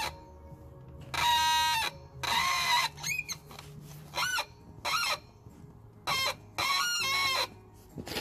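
Rear drum brake shoes of a small two-wheeler squealing in about eight short squeals of differing pitch, some held steady and some sliding up and down, as the brake is pressed and let off in bursts to play a tune on the squeal. A faint low hum runs beneath.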